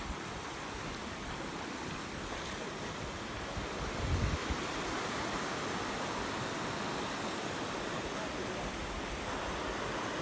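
Steady rush of flowing water from a hill stream, with a short low rumble about four seconds in.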